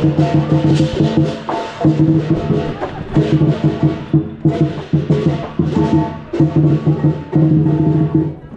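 Chinese lion dance percussion: the big lion drum beaten in fast, dense rolls with cymbals clashing, cutting off suddenly near the end.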